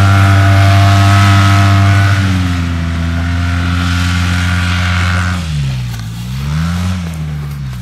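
Arctic Cat Wildcat Trail XT 700's single-cylinder four-stroke engine running at high, steady revs as the side-by-side drives away across the snow, slowly fading. About five seconds in, the revs fall and rise again in a couple of swings.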